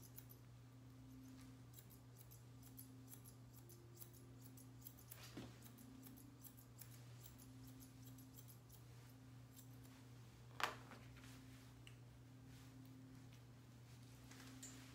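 Faint, quick snips of grooming scissors cutting a poodle puppy's coat, coming in irregular runs, with one louder click about ten and a half seconds in. A steady low hum lies underneath.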